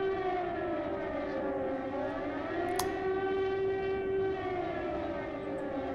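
Air-raid siren wailing, its pitch slowly falling and rising over a steady lower tone, with a single sharp click about three seconds in.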